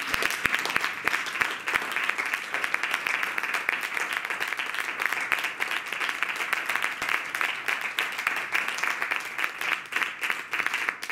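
Small seated audience applauding: steady, dense hand-clapping.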